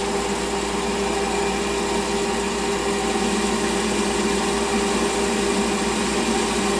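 Small bench lathe running steadily with a workpiece clamped off-centre in its chuck while the tool takes a turning cut: an even motor and gear whine over the hiss of the cut.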